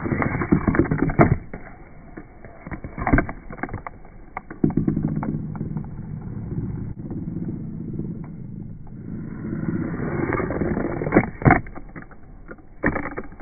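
Small plastic Tony Hawk Box Boarders toy clacking and clattering on a hard tabletop as it is flicked into tricks: scattered sharp knocks, bunched near the start and again near the end, over a steady low hum.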